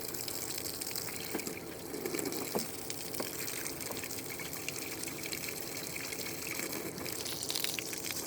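Running water spraying in a steady hiss as a pig is sprayed down, the outlet partly stopped with a finger, with a few light knocks and splashes.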